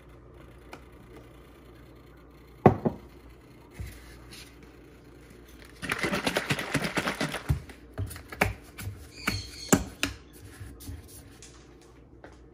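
A ceramic coffee mug set down on a granite countertop with one sharp knock, then a plastic bottle of creamer shaken hard for about a second and a half with a fast rattle, followed by several clicks and taps as its cap is opened.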